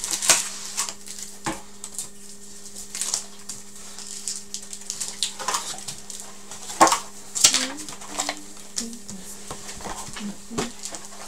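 Wrapped hockey card packs being handled and laid out on a table: scattered crinkling rustles and light taps, a few sharper ones, over a steady low hum.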